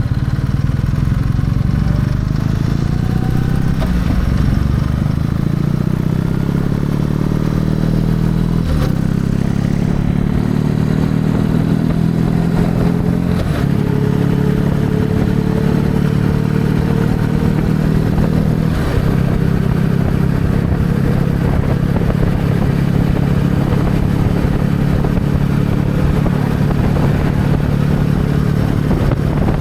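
Kawasaki W650's parallel-twin engine running under way. Its pitch climbs as the bike gathers speed, with gear changes about 9, 13 and 19 seconds in, then holds steady at a cruise.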